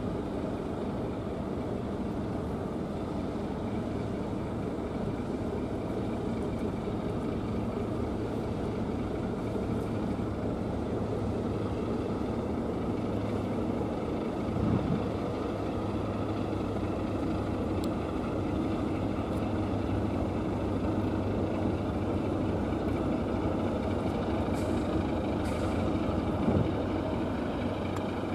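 Heavy diesel engine running steadily, a low drone with a constant hum. There is a brief thump about halfway through and another near the end.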